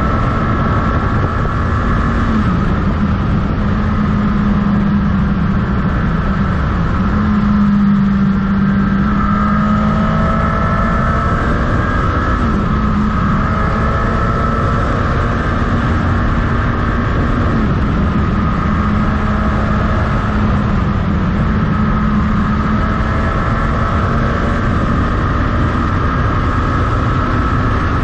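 Motorcycle engine running steadily at cruising revs while riding, over constant wind and road noise. The engine note dips briefly a few times as the revs change.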